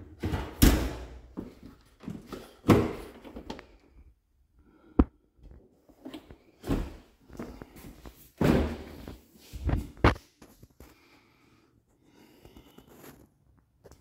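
A run of thunks and clunks from kitchen appliance doors being handled: an oven door is shut near the start, and a refrigerator door is pulled open about two-thirds of the way through.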